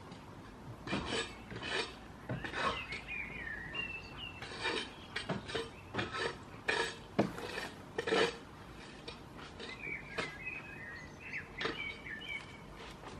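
Goats nuzzling and nibbling at a seated person: irregular scuffs, rubs and light knocks against clothing and a wooden bench. Birds chirp in the background, twice in short runs.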